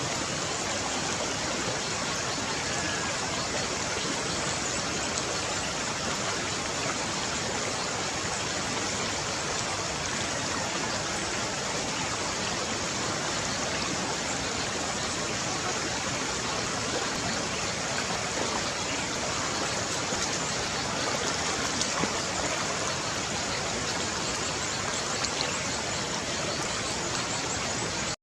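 Steady, even rushing noise with no rhythm or pitch, starting and stopping abruptly.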